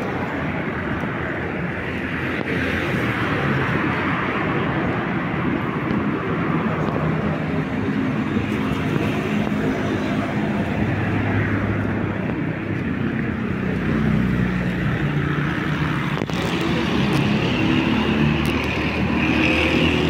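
Steady street traffic: cars driving along the road, with engine hum growing stronger through the second half.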